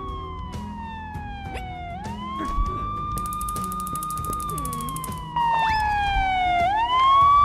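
Cartoon ambulance siren: a held tone that slides slowly down in pitch, then sweeps quickly back up, twice.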